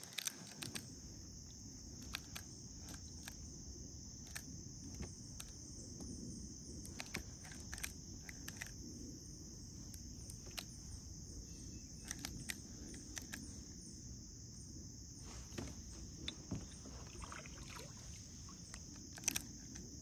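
Steady high-pitched insect chorus, with scattered light clicks and knocks, a couple of them louder near the end.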